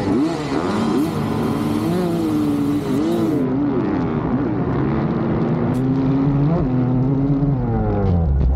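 Several motocross bikes' engines revving together at a race start, their pitches rising and falling across one another.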